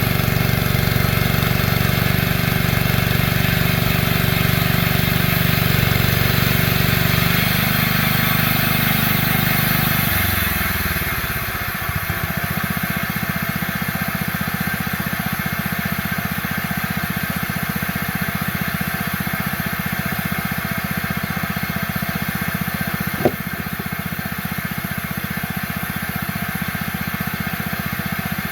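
A homemade bandsaw mill's small engine running steadily. About ten seconds in it slows over a couple of seconds and settles into a lower, slower running. A single sharp click comes near the end.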